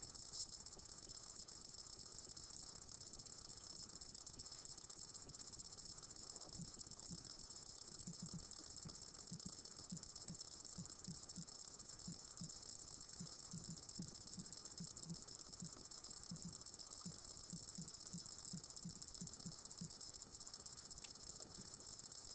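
Near silence: room tone with a steady high hiss, and faint soft low ticks a few times a second through the middle.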